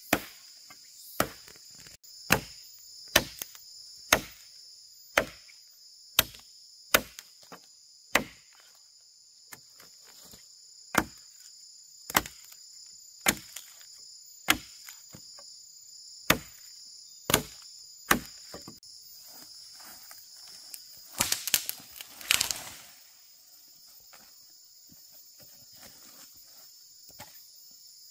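Chopping wood: sharp single blade strikes roughly once a second, with a brief pause near the middle, over a constant high drone of insects. The strokes stop and a short burst of crackling and rustling follows about three-quarters of the way through.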